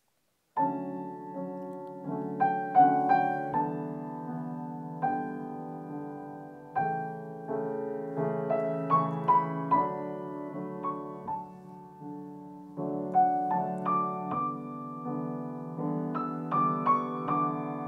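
Solo piano music: melody notes struck and left to ring over low chords, starting about half a second in.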